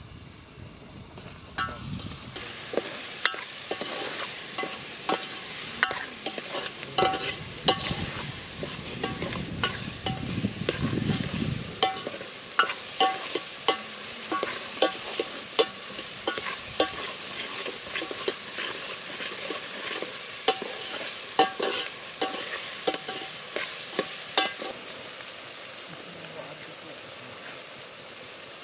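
Peas, tomatoes and onions sizzling steadily in hot oil in a metal pot. A steel ladle stirring them knocks against the pot in frequent sharp clinks, which stop about 25 seconds in, leaving the sizzle.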